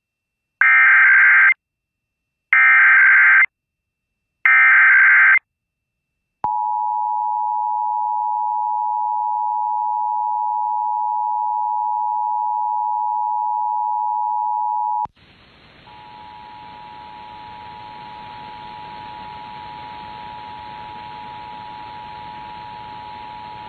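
Emergency Alert System Required Monthly Test tones: three one-second bursts of screechy digital data tones (the SAME header) about a second apart. Then the steady two-tone attention signal sounds for about eight seconds and cuts off abruptly into a hiss, with the same two-tone signal still faintly audible beneath the hiss until near the end.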